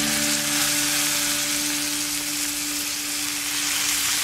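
Sugar syrup poured onto a freshly fried knafeh in a hot, buttery frying pan, sizzling and bubbling with a steady hiss. A held low musical note sounds underneath and stops near the end.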